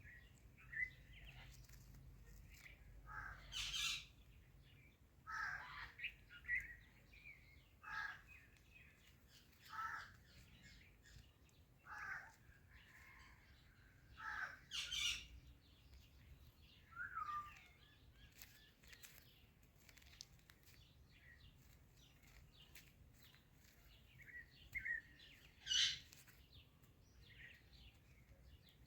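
Indian ringneck parakeet calling: short squawks and chirps, one every second or two, then a lull of several seconds before the loudest call near the end.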